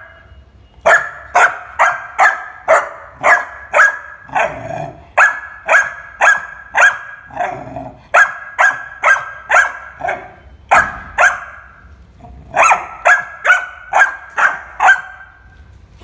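Yellow Labrador retriever puppy barking repeatedly: runs of short, sharp, high barks at about two a second, with brief pauses between the runs.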